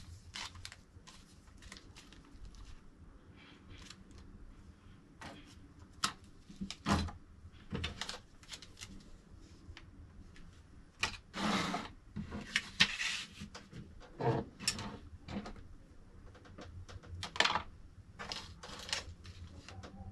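Hands unpacking a 3D printer: irregular clicks, knocks and rustles of packaging and parts being handled, with a longer rustling scrape a little past the middle.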